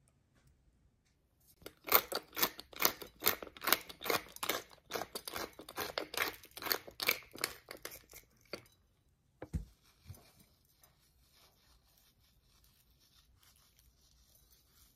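Hand-twisted spice grinder cracking seasoning onto meat: a quick run of crunchy grinding strokes, about three a second, lasting some seven seconds. Two dull knocks follow shortly after.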